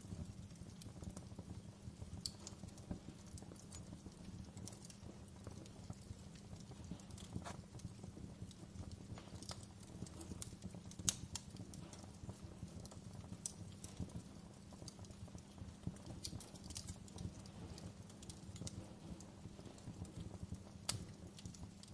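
Wood fire burning in a fireplace, crackling with irregular sharp pops and snaps over a low, steady rumble of the flames. The loudest pop comes about eleven seconds in, and another strong one near the end.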